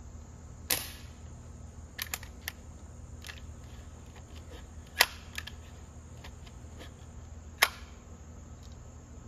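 A Legacy 1000 air rifle fires once about a second in, followed by a few light clicks and then two sharp snaps, typical of the gun being handled and cocked for the next shot. Insects chirp steadily and faintly underneath.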